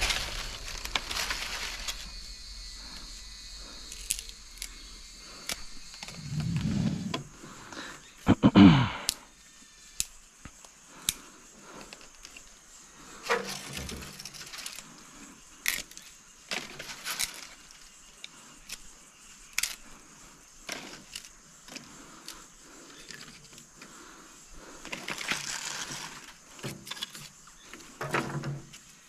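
Dry twigs and dried palm leaves being handled and laid into a fire pit: scattered sharp clicks and snaps with short spells of rustling. About eight seconds in there is one louder sound that falls in pitch.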